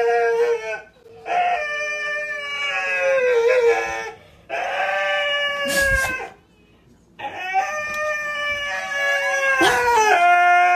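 A dog howling in four long, drawn-out, high-pitched cries with short breaks between them. Two sharp knocks can be heard, one near the middle and one near the end.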